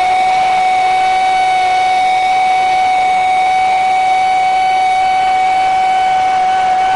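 Football commentator's long, drawn-out goal shout, a single 'goooool' held on one steady high pitch.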